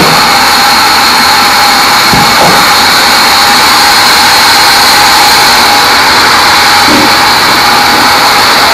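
Sawmill band saw running steadily and loud, a hissing whine with a strong high ringing tone, with a few faint knocks.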